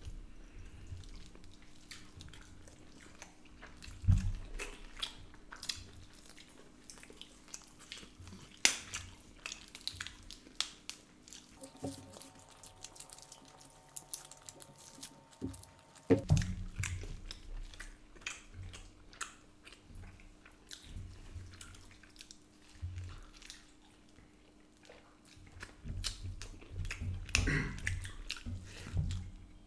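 Close-up chewing and biting of curried mutton leg meat eaten by hand, with wet mouth smacks and a few sharper clicks; the meat has turned tough.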